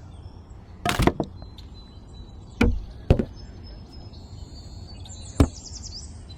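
Four sharp knocks or thwacks, the second and third close together, over a low background with faint high-pitched chirps.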